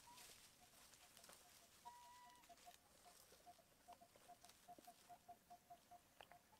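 Faint outdoor ambience: a steady series of short piping notes at one pitch, about four a second, with one brief held note about two seconds in and light rustles of dry leaves.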